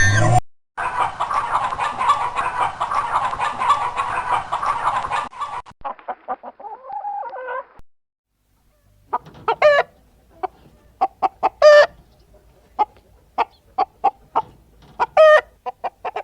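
Chickens clucking: a flock clucking together for about five seconds, then after a short gap single short clucks, with a few louder squawking calls.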